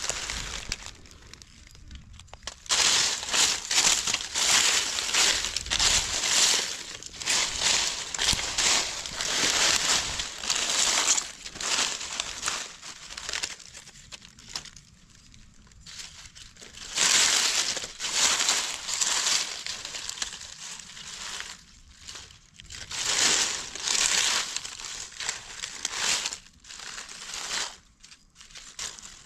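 Dry fallen leaves crackling and rustling as gloved hands push them aside and dig in the leaf litter. The sound comes in several long stretches with short pauses between.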